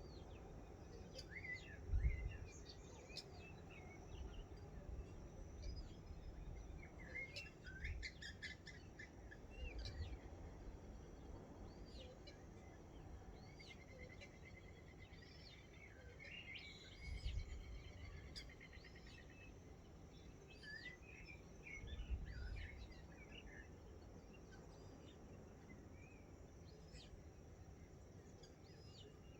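Morning chorus of several wild birds chirping and whistling, with a longer trill near the middle. Low rumbles come three times, the loudest about two seconds in.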